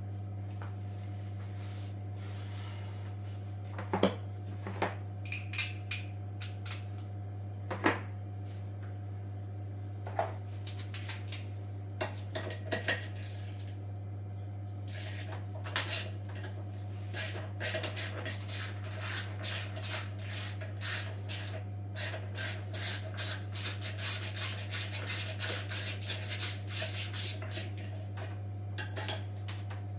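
Metal tools and parts clinking, tapping and scraping while a washing machine is worked on: a few separate knocks in the first half, then a dense run of clattering clicks in the second half, over a steady low hum.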